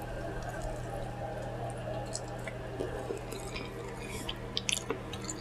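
Quiet chewing of pizza with faint wet mouth clicks and smacks, a few sharper clicks near the end, over a steady low hum.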